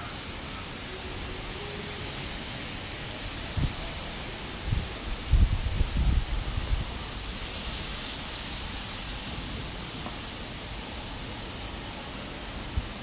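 Steady high-pitched insect chorus trilling without a break, with a few low thumps near the middle.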